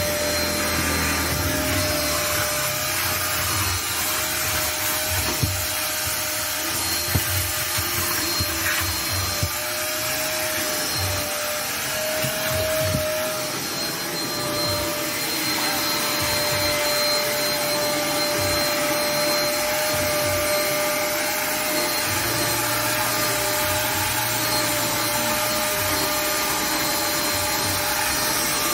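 Drum-type shop vacuum running steadily with a constant motor whine, its hose sucking dust and grit off a car's bare metal floor pan. A few sharp knocks come through about five and seven seconds in.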